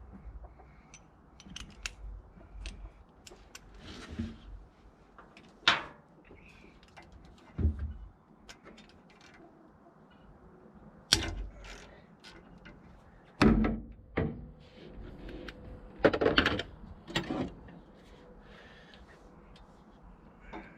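Hand tools and metal parts being handled: scattered clicks, knocks and a few louder clunks at uneven intervals.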